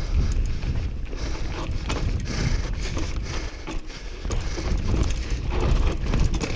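Mountain bike rattling and clattering over rough ground on a descent, with many short knocks, under a steady rumble of wind on the microphone.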